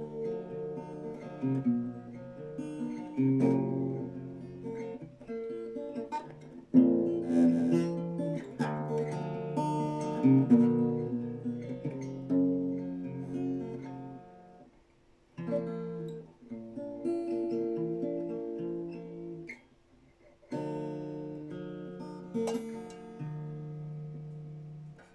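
Acoustic guitar strummed chord after chord with no singing, the song's closing instrumental. It breaks off twice for a moment and the last chord dies away at the very end.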